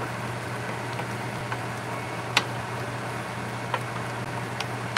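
Wooden spoon stirring chicken, glass noodles and cauliflower in a stainless steel skillet, with a few sharp clicks of the spoon against the pan, the loudest about halfway through, over a steady hiss of the saucy food cooking and a steady low hum.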